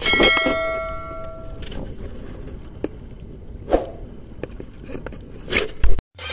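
A bell-like chime rings and fades over about a second and a half: the sound effect of a subscribe-button animation. It is followed by steady wind-and-water noise on the boat with a few scattered knocks.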